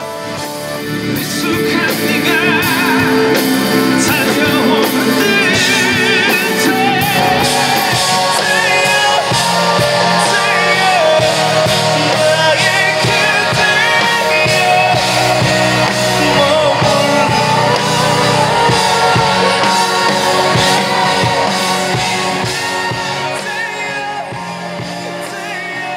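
Live pop-rock band music: a man singing with vibrato over electric guitar, bass and drums. It swells up in the first couple of seconds and eases down near the end.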